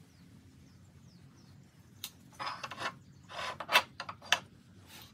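Hand work on small metal parts: a click about two seconds in, two short scraping rubs, then a few sharp clicks, over a low steady hum.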